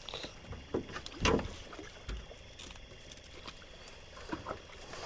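Small knocks and water sounds of a catfish being lowered over the side of a boat and let go, with one louder short thump or splash about a second in.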